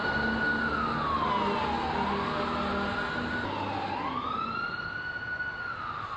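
Fire engine siren wailing, its pitch rising and falling in slow sweeps of a couple of seconds each, getting a little fainter toward the end.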